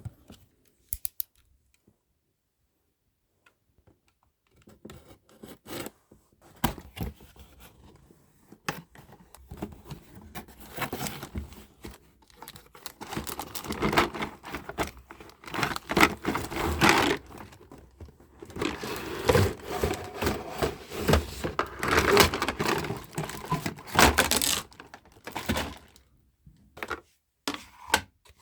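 Packaging being torn open and crinkled by hand while a kitchen set is unboxed: dense crackling and tearing with many sharp clicks, starting about five seconds in and easing off shortly before the end.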